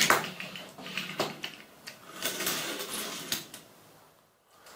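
Hot Wheels die-cast toy cars being handled on a tabletop: sharp clacks as they are picked up and set down, with a stretch of wheels rolling and rattling over the table in between.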